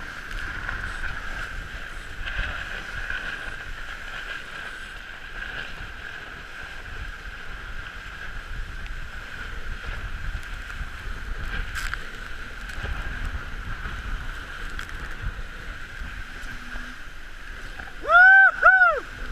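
Wind and rushing water on a trimaran sailing fast in a strong breeze, with wind buffeting the microphone and a steady high whistling tone. About eighteen seconds in come two loud whoops, each rising and falling.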